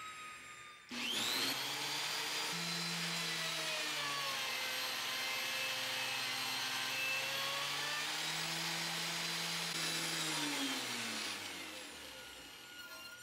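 An electric woodworking machine starts up about a second in and runs loud and steady while cutting cherry stock, its motor pitch dipping and recovering under load. Near the end it spins down with a falling whine.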